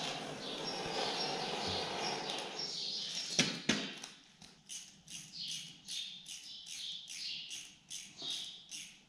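A heat gun blowing steadily, then two sharp clicks a little over three seconds in as it stops. After that comes a regular run of short, high chirps, about two or three a second.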